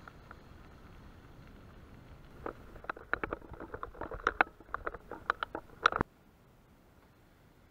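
A steady low rumble, then a run of sharp, irregular clicks and knocks lasting about three seconds. The loudest knock comes just before the sound cuts off abruptly.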